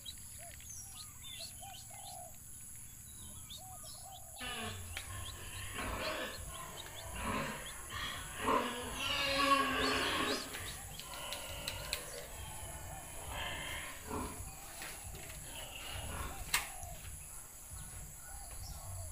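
Short bird calls repeating about twice a second. About four seconds in the sound changes abruptly to a bicycle rattling as it is ridden over rough grass, with a louder wavering call in the middle.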